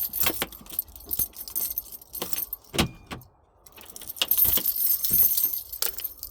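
A bunch of keys jangling and clicking while a key is tried in a door lock, with a sharper clack a little under three seconds in and a short pause just after.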